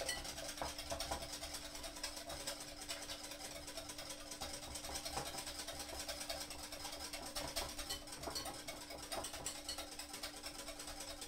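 Wire balloon whisk beating double cream in a glass bowl by hand: a fast, steady run of light ticks and scrapes as the wires sweep the bowl, over a steady low hum.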